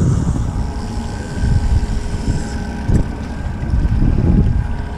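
Wind buffeting the microphone in uneven gusts, over the faint steady hum of a boat's outboard motor running. A single sharp knock about three seconds in.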